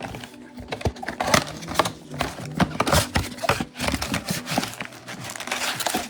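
Trading card packs and their foil wrappers being handled and opened: irregular crinkling and rustling with small clicks and snaps.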